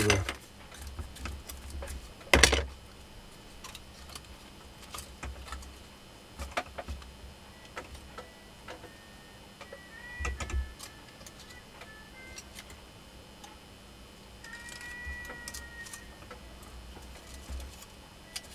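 Scattered light clicks and taps as an angle grinder armature and its wire-winding jig are handled, with a sharp knock about two seconds in and a duller thump near the middle.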